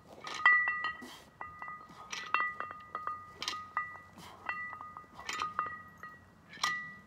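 Metal clinking and chiming: many irregular strikes, each ringing on the same two notes, one higher and one lower. Short rushing noises come about once a second.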